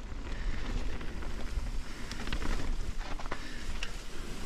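Mountain bike descending a dirt trail at speed: wind buffeting the camera microphone with a low rumble, tyres running over dirt and leaves, and scattered sharp clicks and rattles from the bike over bumps, most of them in the middle.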